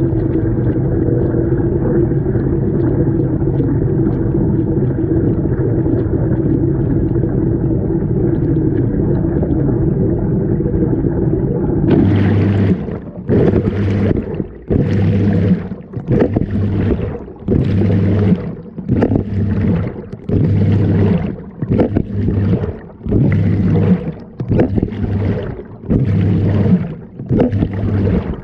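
Washing machine running, heard from a camera inside the drum: a steady muffled rumble, then about twelve seconds in it changes to water sloshing and gurgling in regular surges about once a second as the drum turns.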